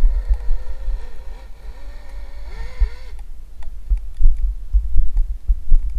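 Electric motor of a 3S RC snowmobile whining, its pitch wavering up and down with the throttle, then cutting off about three seconds in. Under it, low irregular thumping on the microphone.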